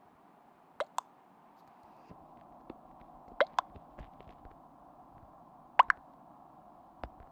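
Short sharp clicks, mostly in close pairs about two and a half seconds apart, over a faint steady hum.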